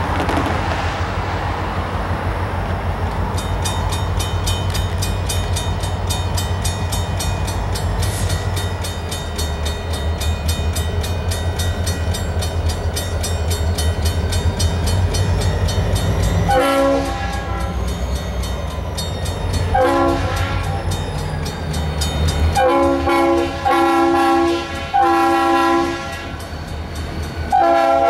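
A failing Modern Industries mechanical crossing bell starts ringing in fast, even strokes about three seconds in, over a low rumble. From a little past halfway, the horn of an approaching Norfolk Southern EMD SD40-2 locomotive sounds a series of long and short blasts for the crossing.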